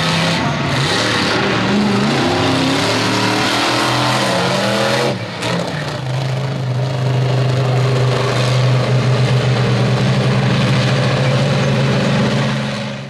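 Monster truck engines revving hard as the trucks race, the pitch rising and falling for the first five seconds. After a brief dip about five seconds in, an engine holds steady at high revs.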